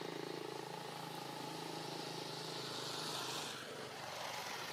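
A motor vehicle's engine running steadily, then dying away about three and a half seconds in.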